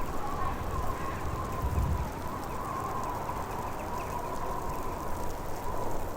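Blizzard wind: a steady rushing noise with a howling whistle that wavers in pitch, over a low gusty rumble that swells about two seconds in.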